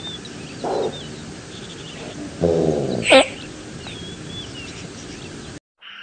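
An animal calling: a short low call about a second in, then a bleat with falling pitch at about two and a half seconds, followed at once by a sharp high cry, the loudest sound. Faint small-bird chirps run underneath, and the sound cuts off abruptly near the end.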